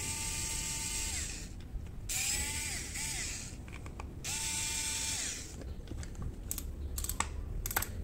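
Pen-style electric screwdriver driving the screws of a fishing reel's side plate in three short runs of about a second each; each run holds a steady whine that drops in pitch as the motor stops. Light clicks of small metal parts being handled follow near the end.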